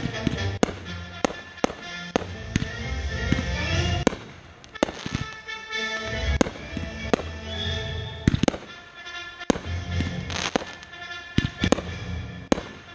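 Fireworks going off in a string of sharp bangs, about one or two a second, with music playing underneath.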